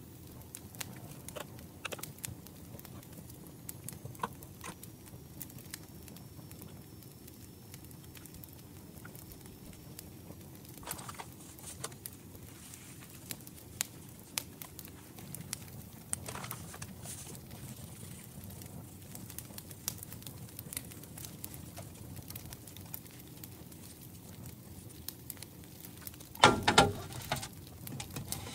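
Hands working raw pork belly and butcher's string on a wooden cutting board: soft scattered taps, rustles and small clicks, with a louder clatter of knocks about 26 seconds in.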